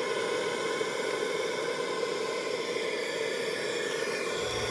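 Steady hiss of noise with no distinct events; a low rumble comes in just before the end.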